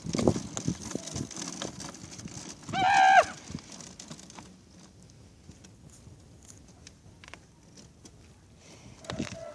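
Knocks and scuffs from an electric self-balancing unicycle being ridden, with one short high-pitched cry about three seconds in; after that it goes quieter, with only scattered clicks.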